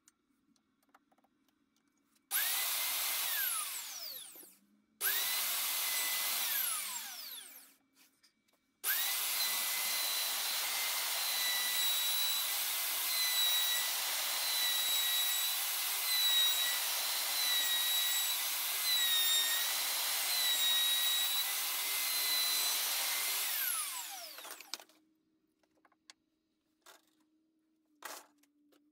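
Electric plunge router routing a truss rod channel in a hardwood guitar neck blank. It is switched on for two short runs that each wind down, then for one long cut of about fifteen seconds, its high whine dipping slightly as the bit bites, before it spins down.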